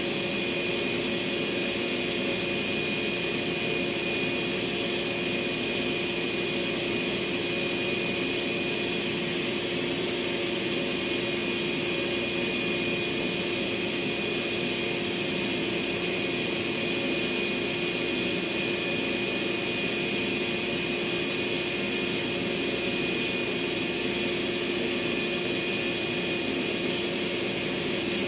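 Steady machine drone with a held hum and a higher whine, unchanging throughout, like a motor running continuously.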